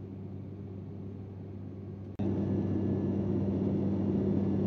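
Steady in-cabin drone of a turboprop airliner's engines and propellers, with a low steady hum; it becomes abruptly louder about two seconds in.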